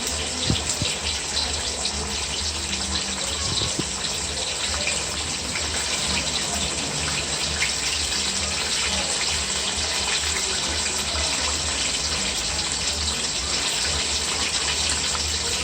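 Flour-coated chicken pieces deep-frying in very hot oil: a steady sizzle with fine crackling.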